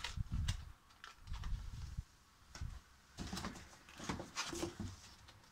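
Packaging and cardboard being handled: scattered rustling with a few small clicks and knocks as parts are handled and the hand reaches into a cardboard box.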